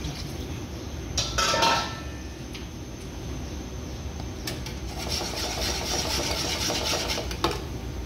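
Utensils scraping and rubbing at an aluminium frying pan of simmering brown sauce: a louder scrape about one and a half seconds in, then a steadier scratchy rush from about five to seven seconds, over a low steady rumble.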